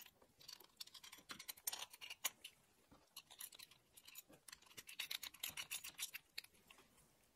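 Faint, irregular metallic clicks and scrapes of steel washers and nuts being fitted by hand and turned onto the threaded ends of a 10 mm steel axle rod.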